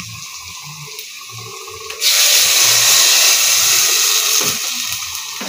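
Water poured from a jug into a pot of browned meat and spices on the stove: the pilau's cooking water going in. A loud splashing hiss starts suddenly about two seconds in and slowly eases off.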